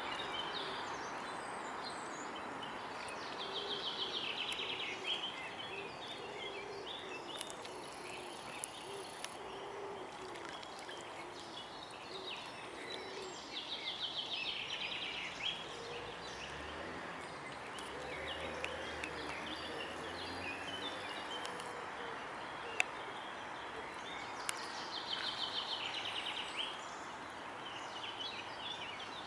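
A songbird repeats a short, rapid trilled phrase about every ten seconds, over a steady background hiss of outdoor noise and water. Light splashing from a mute swan cygnet dabbling for food in the shallows.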